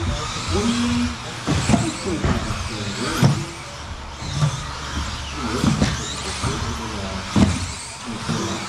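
Several 1/10-scale electric RC off-road buggies racing on an indoor carpet track. Motors whine and tyres run on the carpet, with sharp plastic clacks of chassis and wheels landing off jumps several times.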